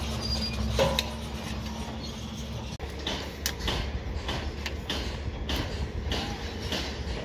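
Hand hoe and shovels digging dry, stony soil: irregular chops and scrapes of the blades into the earth, over a steady low machinery hum.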